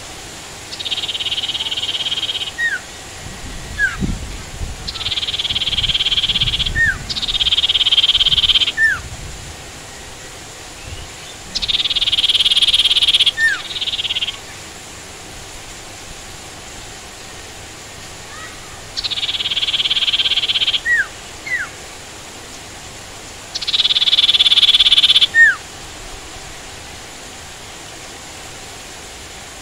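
Common iora (sirtu) calling. It gives six high buzzy trills of one to two seconds each, irregularly spaced, and each ends in a short down-slurred whistle. A steady hiss of rain runs underneath.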